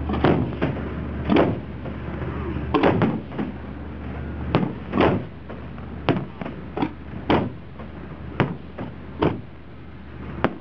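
Aerial fireworks shells bursting overhead: a rapid, irregular series of sharp booms, about fifteen of them, some coming two or three in quick succession.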